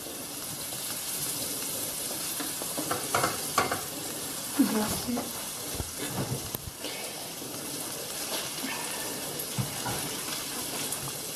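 Pancetta and barbozzo (pork jowl) frying in olive oil in a pan: a steady sizzle, with a few soft knocks now and then.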